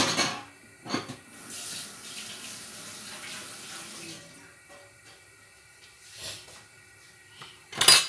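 Kitchen sounds: a sharp knock at the start and another about a second in, then a couple of seconds of water running, like a tap, and a loud clack near the end as a wooden spatula is taken to the wok.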